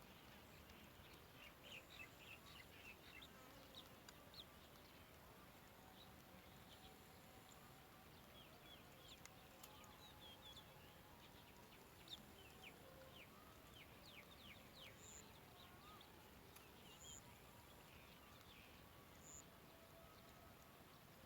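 Faint, high-pitched chirps from small birds in quick runs over a low background hiss.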